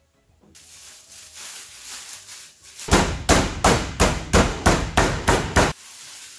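Meat mallet pounding thin-sliced New York strip steak flat through plastic wrap on a wooden cutting board. About a dozen quick blows come at roughly four a second, starting about halfway in and stopping shortly before the end.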